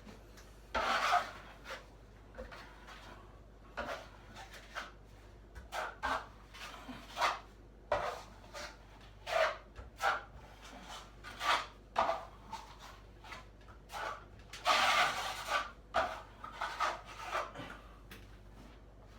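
Hand tool scraping across a cracked ceiling while joint filler is worked in: short, irregular scraping strokes about one a second, with two longer, louder scrapes about a second in and near the end.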